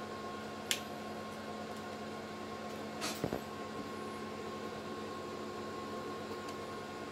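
Room tone: a steady hiss with a low electrical hum and a faint steady whine, broken by a sharp click under a second in and two or three soft knocks about three seconds in.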